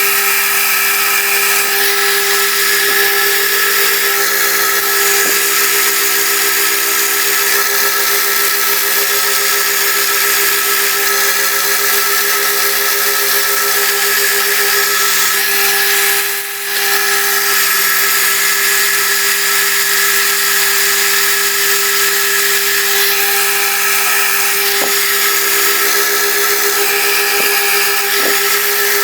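Milling machine running steadily with a boring head, enlarging a hinge hole; a steady hum with several held tones, dipping briefly about halfway through.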